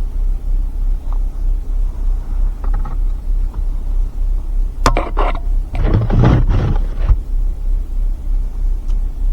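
Steady low rumble of a vehicle running, with a few sharp knocks about five seconds in followed by a short, louder noisy burst.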